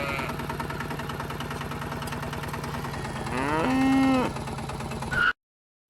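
A cow moos once, about three seconds in, rising then holding, over a small engine running steadily; everything cuts off abruptly near the end.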